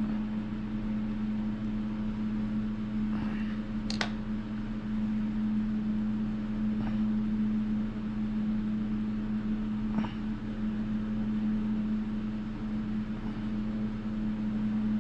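A steady mechanical hum on one low pitch, like a small fan running. A couple of faint clicks come about four and ten seconds in.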